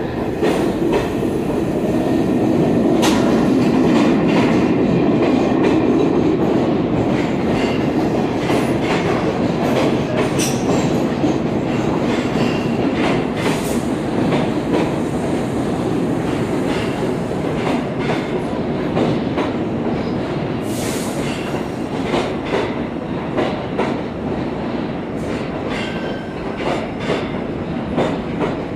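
An R46 New York subway train pulls out of the station and its cars run past close by. It makes a steady heavy rumble with rapid clicking of wheels over the rail joints, loudest a few seconds in.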